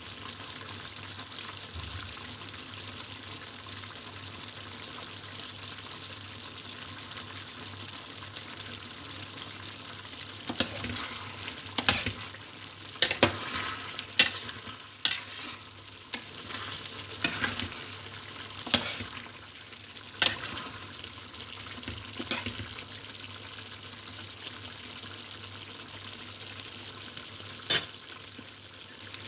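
Chicken mechado stew simmering with a steady sizzle in a stainless steel pot. From about ten seconds in, a metal spoon stirs it, clinking and scraping against the pot for some ten seconds, and there is one sharp clink near the end.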